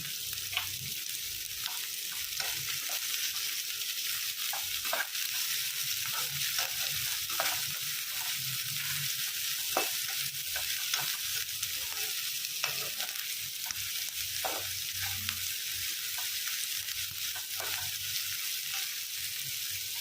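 Sliced onions frying in hot oil in a kadai: a steady sizzle with scattered crackles and pops, as the onions are stirred in the pan.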